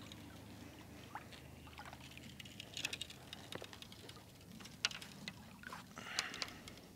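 Faint water splashing and trickling with scattered light clicks and knocks, a few louder splashes around three, five and six seconds in.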